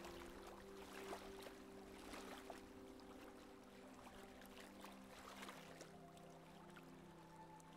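Faint water rushing and splashing along a sailboat's hull as it runs downwind. Underneath are soft held tones that shift pitch a couple of times, like quiet background music.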